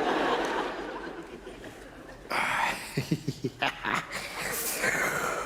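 Audience laughing, breaking out at the start and swelling again about halfway through with a quick run of short laughs.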